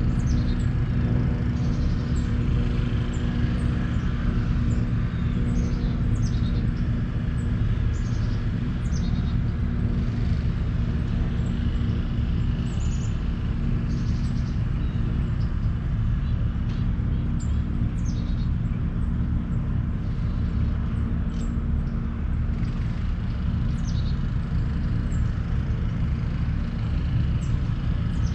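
Steady low rumble with a constant hum underneath, with birds chirping repeatedly in short, high, downward-sweeping calls.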